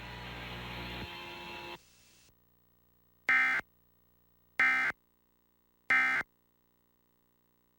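Emergency Alert System end-of-message code: three short, identical bursts of high-pitched data tones about a second and a half apart, signalling that the alert is over. A steady hiss stops about two seconds in, before the bursts.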